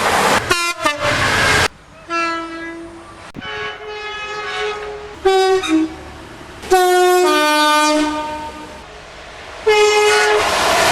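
British trains sounding two-tone air horns: several separate blasts, some stepping from a high note down to a low one. A loud rush of train noise runs under the first blast.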